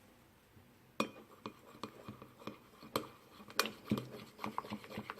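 A spoon stirring PVA glue and food colouring in a bowl, clinking and scraping against the bowl in a run of irregular taps that begins about a second in.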